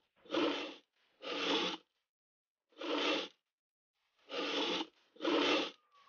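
Five short rasping scrapes, each about half a second long, with dead silence between them. They are added sound effects for a stop-motion puppet dragging a metal rail across a tabletop.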